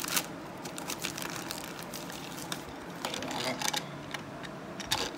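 Thin plastic toy bag crinkling and crackling as it is torn open and handled by hand, in irregular bursts of sharp crinkles.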